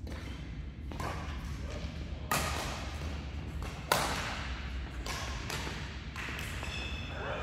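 Badminton rally: rackets striking the shuttlecock in a string of sharp hits about a second apart, the loudest about four seconds in, over a steady low hum.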